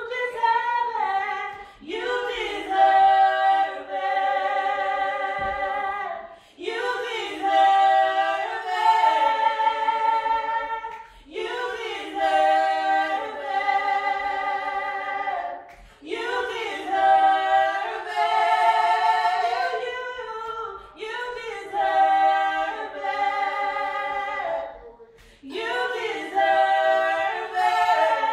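Two women singing gospel a cappella in harmony: long held notes in phrases that start again every four to five seconds.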